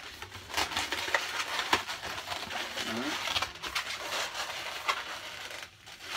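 Latex 260 modelling balloons squeaking and rubbing against each other as they are twisted and tied together, a run of short squeaks and crinkles with one brief low squeak about three seconds in.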